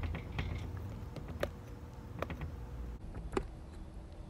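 A few small, sharp plastic clicks and taps as a squeeze bottle of aloe gel is handled and squeezed over a plastic mixing bowl, with a low steady rumble underneath.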